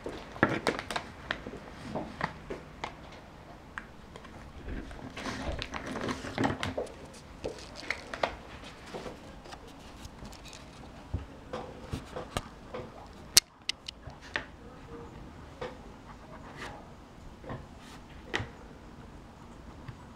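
Scattered taps, knocks and rustling from hands working a felt-tip marker over paper and handling the camera, with one sharp click about thirteen seconds in.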